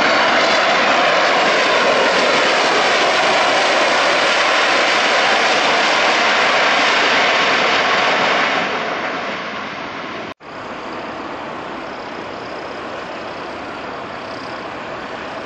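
Jet engines of a McDonnell Douglas MD-83 running loud as the airliner rolls past on the runway, the noise shifting slowly in pitch and fading after about eight seconds. About ten seconds in it cuts off abruptly and gives way to a quieter, steady jet noise from a Boeing 747-8 freighter on final approach.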